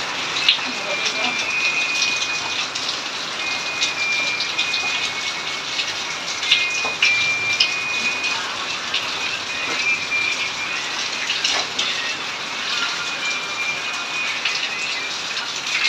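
Steady rain falling and splashing on a concrete yard, with scattered knocks and splashes of clothes being hand-washed in basins. A thin high tone comes and goes several times.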